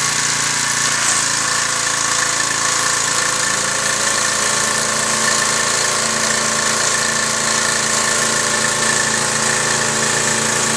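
Troy-Bilt 2700 PSI pressure washer's gas engine running steadily, with the steady hiss of its water jets spraying under a round surface-cleaner attachment onto concrete.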